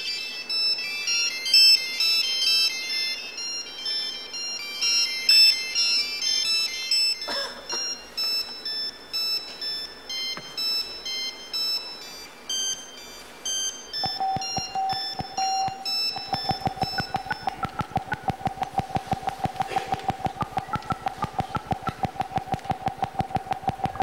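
Many mobile phones ringing together, their ringtones playing short, high beeping notes that overlap into a scattered melody. About two-thirds of the way in a steady mid-pitched tone takes over, with a fast even pulse under it.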